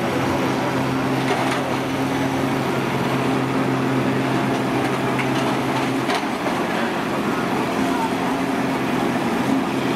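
Several combine engines running as the machines push against each other, a steady drone whose low hum drops out about six seconds in, over crowd chatter.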